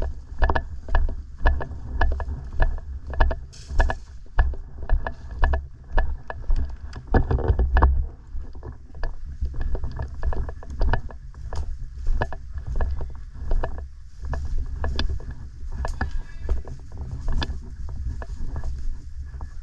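Footsteps at a steady walking pace, about two a second, with gear and clothing rubbing against a body-worn camera and many sharp clicks among them. The steps are strongest in the first eight seconds, then softer and less regular.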